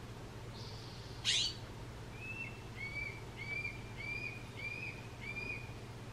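Juvenile red-tailed hawk calling for its parents: a sharp falling squeal about a second in, then a run of about six short, repeated cries, evenly spaced.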